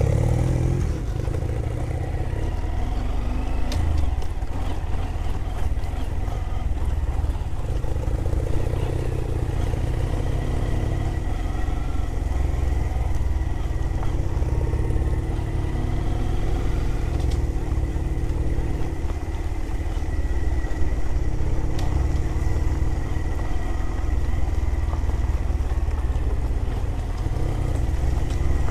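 Small motorcycle engine running steadily on the move, with heavy low wind rumble on the microphone and a few scattered knocks.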